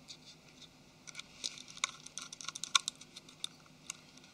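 Rapid small clicks and taps of a precision screwdriver and tiny screws against a phone's plastic mainboard cover, bunched in the middle, with one sharper click near the end of the cluster.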